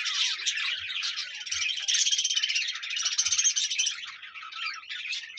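Many small birds chirping at once, a dense overlapping chatter, a little louder around two to three seconds in.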